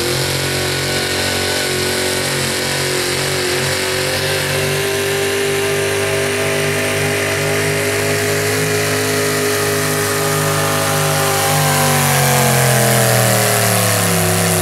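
Pulling vehicle's engine running flat out as it drags the weight sled down the track. The pitch holds steady for most of the pull, then falls over the last few seconds as the run winds down.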